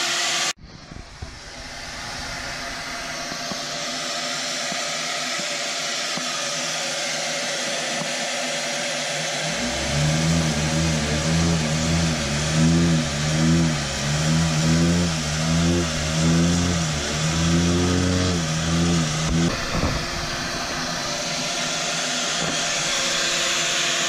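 Vacuum plate seeder's blower running with a steady rush. It cuts out sharply near the start and builds back up over a few seconds. For about ten seconds in the middle, the plate vibrator adds a low wavering buzz as the seeds are shaken across the plate to the suction holes.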